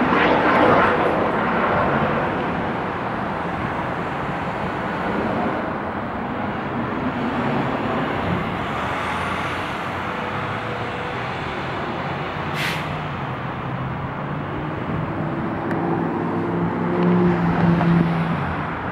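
Street traffic passing below: a steady rush of cars and tyres, louder at first, with a short sharp hiss about two-thirds of the way through and a vehicle's engine drone swelling near the end.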